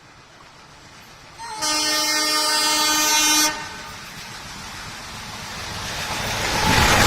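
Old-style horn of a WDM3A diesel locomotive: a short tap, then one steady multi-tone blast of about two seconds. Afterwards the rumble of the approaching train builds steadily and is loudest near the end.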